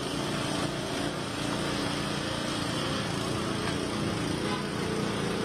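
An engine running steadily at a constant pitch, over a continuous hiss of water.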